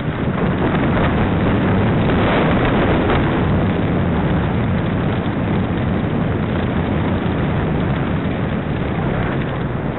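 Loud, steady rushing of wind over the microphone of a camera on a moving mountain bike, mixed with the rumble of the bike's tyres over frozen ground.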